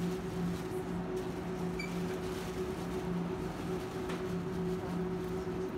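Indoor room tone: a steady low hum with an even background hiss, and a faint short beep about two seconds in.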